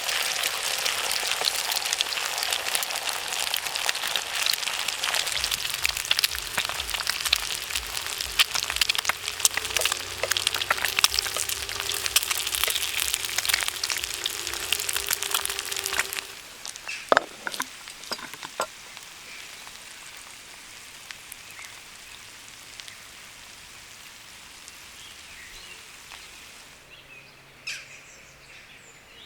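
Campfire crackling and popping, a dense hissing crackle full of sharp snaps. About sixteen seconds in it drops abruptly to a much quieter backdrop, with only a few scattered pops and faint outdoor ambience.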